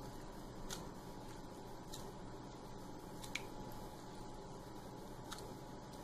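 Faint handling sounds as soaked vadas are set one by one into a glass bowl of yogurt: a few soft, sharp clicks spaced a second or more apart over a low steady room hum.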